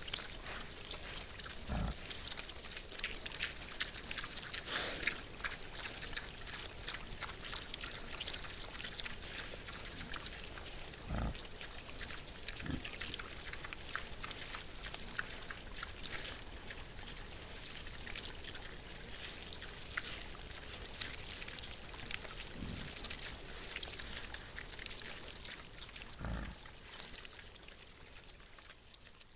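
Wild boars feeding: a steady crackle of small clicks from rooting and chewing, with a few dull thuds.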